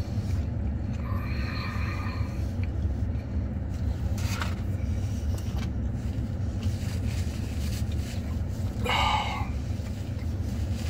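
Steady low rumble of the pickup truck's running engine, heard inside the cab. A short rustle comes about four seconds in, and a brief vocal murmur about nine seconds in.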